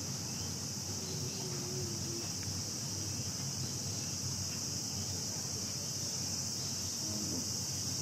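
Steady high-pitched drone of an insect chorus, with a faint murmur of voices underneath.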